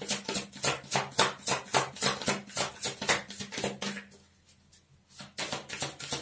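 Tarot cards being shuffled by hand: a quick run of crisp card slaps, about five a second, pausing for about a second near the middle and then starting again.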